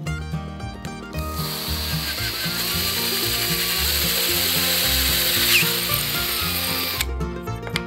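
Power drill running steadily, its twist bit boring through the bowl of a metal spoon: a loud whine with grinding that starts about a second in and stops suddenly near the end. Plucked-string background music plays underneath.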